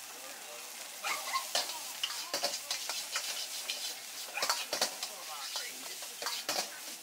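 Metal ladle scraping and clanking against a wok as egg fried rice is stir-fried and tossed, over a steady sizzling hiss. The sharp irregular strokes start about a second in.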